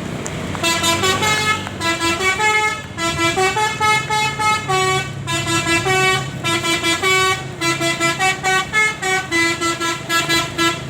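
Telolet horn on a Sumber Jaya bus: a multi-note air horn playing a quick melody of short notes, starting about half a second in, with a brief break near the middle, over the low hum of the bus engine running.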